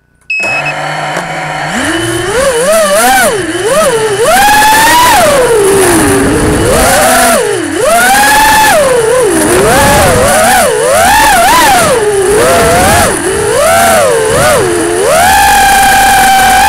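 Racing quadcopter's brushless motors and propellers, recorded on board: a short high beep and a low steady hum as the motors arm and idle, then about two seconds in they spin up and whine, rising and falling in pitch with every throttle change.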